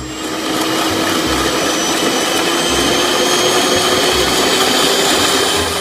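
Electric hand mixer running at a steady speed, its twin beaters whisking a thick cream batter in a bowl: an even motor whine over a whirring rush.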